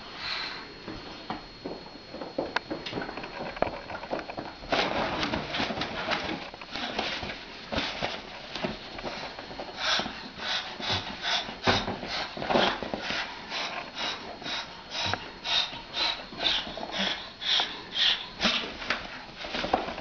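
Moluccan cockatoo hissing at a cat in a rapid series of short breathy huffs, coming about two a second in the second half.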